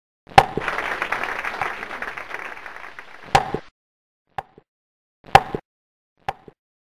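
A series of sharp hits: the first is followed by a crackly rush that fades over about three seconds, then come four more separate hits, roughly a second apart, with silence between.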